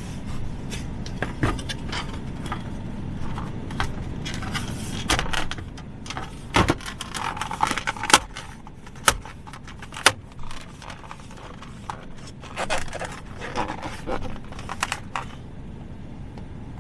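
Small plastic and metal parts of a truck's center console lid being handled during a latch repair: scattered sharp clicks, rattles and scrapes, with the loudest clicks about halfway through.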